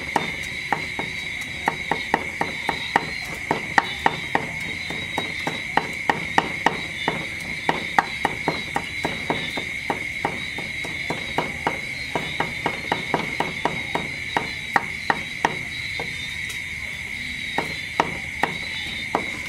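Kitchen knife cutting tomatoes on a thick wooden chopping block: a run of sharp, irregular knocks, two or three a second, pausing briefly near the end. Insects drone steadily behind.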